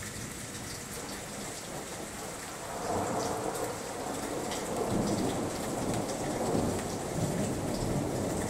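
Steady rain falling, with scattered drips and spatters. About three seconds in a long roll of thunder starts rumbling and swells louder through the rest of the stretch.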